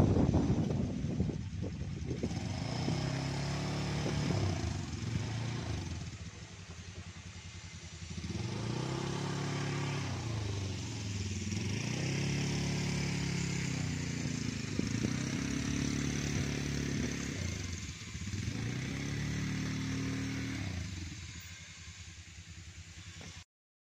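Motorcycle engine running while riding slowly, its pitch rising and falling again and again as it speeds up and eases off. It cuts off suddenly near the end.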